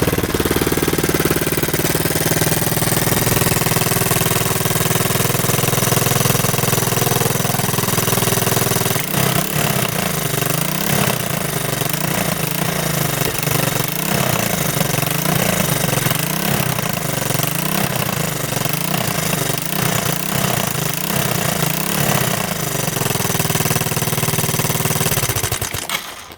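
1985 Yamaha 225DX three-wheeler's freshly rebuilt four-stroke single-cylinder engine running steadily. From about nine seconds in, its note wavers up and down in a regular rhythm, and the engine stops shortly before the end.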